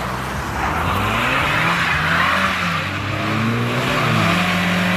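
A car engine revving hard as the car accelerates away. Its pitch climbs and drops back several times, like shifts up through the gears, over a steady hiss.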